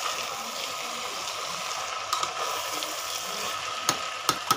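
Rice and dal sizzling as they fry in oil in a pressure cooker pan, a steady hiss, with a spoon knocking and scraping against the pot a few times near the end.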